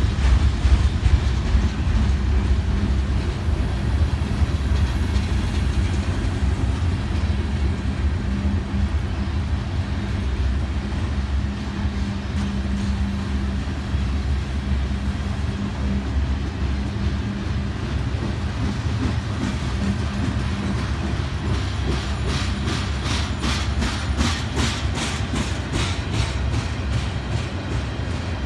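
Freight cars rolling past: a steady low rumble of steel wheels on rail. For the last several seconds the wheels click over the rail at about three clicks a second.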